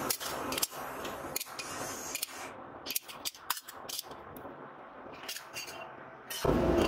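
Thin strips of 1095 carbon and 15N20 steel clinking and clacking against each other as they are picked up and stacked into a billet for pattern welding, a scatter of sharp metallic clicks. Near the end a louder, continuous noise starts.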